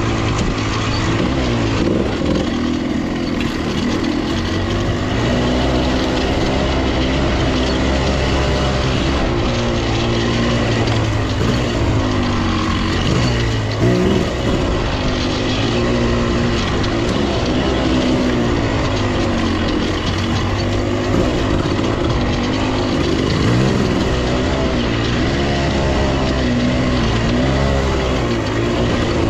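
1995 KTM 300 two-stroke dirt bike engine being ridden hard, its revs rising and falling constantly with the throttle. About halfway through the revs drop briefly and there is a sharp knock before the engine picks up again.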